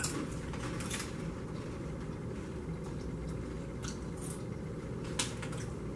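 Doritos Blaze tortilla chips being chewed: a few scattered crisp crunches over a steady low room hum, the sharpest about five seconds in.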